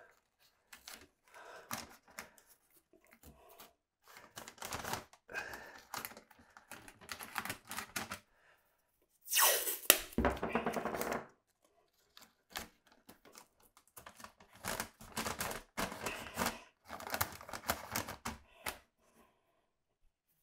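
Green painter's tape (FrogTape) being pulled off the roll, torn into short strips and pressed down onto masking paper, in irregular bursts of tearing and crinkling. A longer, louder pull off the roll comes about ten seconds in.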